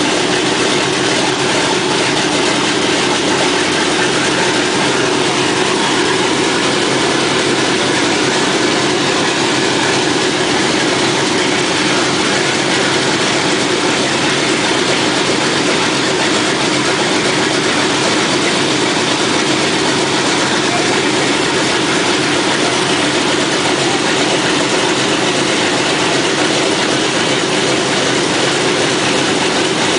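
Boeing B-17 Flying Fortress's Wright R-1820 Cyclone nine-cylinder radial engines idling steadily with propellers turning, just after start-up.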